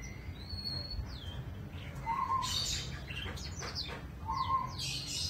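Birds chirping and calling: a short whistled note, then brief calls and quick bursts of high chirps, over a low steady rumble.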